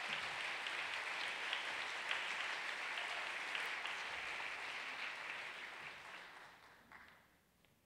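Audience applauding, a steady patter of many hands clapping that dies away over the last couple of seconds.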